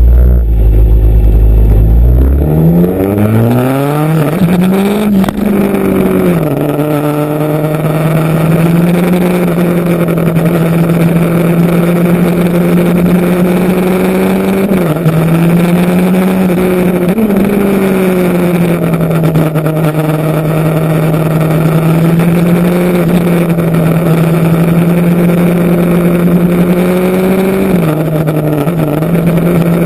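Motorcycle engine under way: a deep rumble for about two seconds, then the revs climb for a few seconds, drop at a shift, and the engine settles into steady running, with brief dips in pitch near fifteen, seventeen and twenty-eight seconds in.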